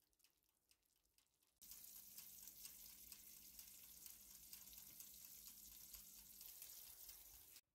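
Faint steady hiss from a hot oven with a lasagna baking inside, with a low hum under it; it starts suddenly about a second and a half in and cuts off just before the end. Before it, only faint crackling.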